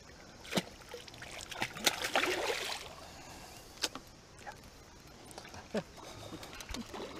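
A hooked catfish splashing at the water's surface for about a second and a half, with a few sharp knocks before and after.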